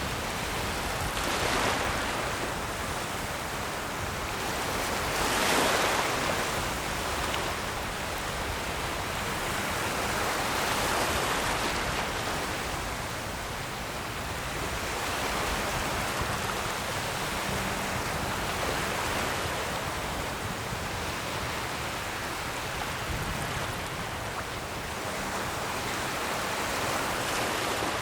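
Ocean waves washing in as a steady rushing hiss. The surf swells and falls back every few seconds, with the loudest surge about six seconds in.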